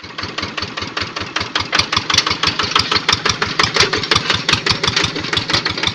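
Quick Boxer 1000 hand tractor's Kubota engine running at a steady speed, a rapid even beat of about seven firing knocks a second.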